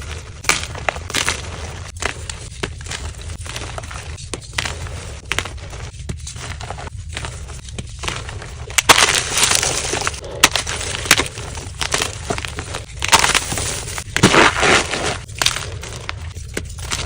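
Dyed gym chalk being crushed, with sharp snaps and dense crunching. The loudest crunches come about halfway through and again a few seconds before the end, over a low steady hum.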